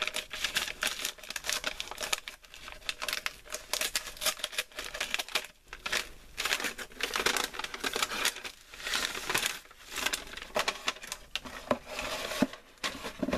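Gift wrapping crinkling and rustling as a present is pulled open by hand: a continuous crackle with a few short pauses.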